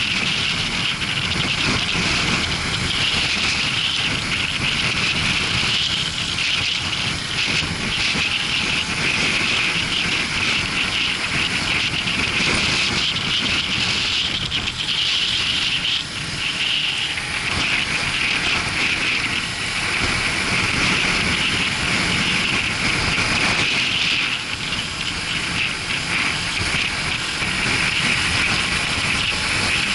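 Motorcycle on the move: steady wind rush and road noise over the running engine of the Suzuki GW250 Inazuma, unbroken throughout.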